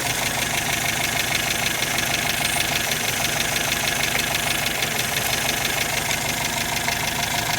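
1952 MG TD's four-cylinder XPAG engine with twin SU carburettors, idling steadily, its carburettors not yet tuned.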